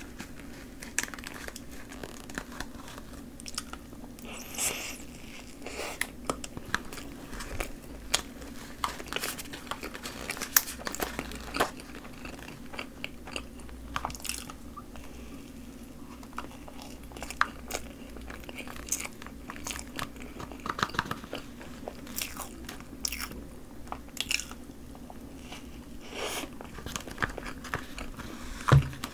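Close-miked chewing of Choco Pie with whipped cream, made up of scattered short mouth clicks and smacks at irregular intervals over a low steady hum.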